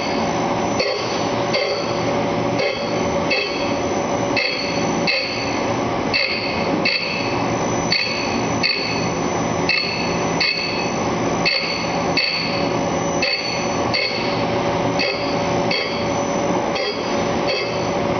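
TruDress wheel dressing machine running, its hard dressing wheel grinding the profile of a 220-grit Borazon (CBN) wheel in light finishing passes. A steady grinding whine with a regular beat of about one and a half pulses a second.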